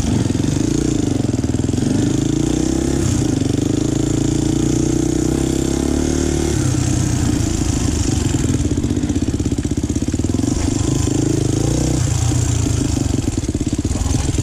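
Dirt bike engine running at trail speed, the revs shifting up and down a few times as the throttle is worked over the rutted ground.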